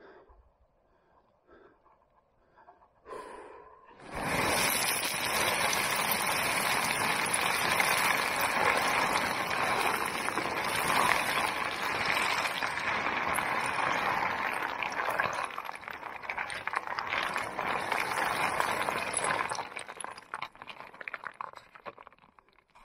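Loose shale scree scraping and clattering under a person sliding down the slope on his backside. It starts about four seconds in, runs on densely, then thins to scattered stone clicks and stops near the end.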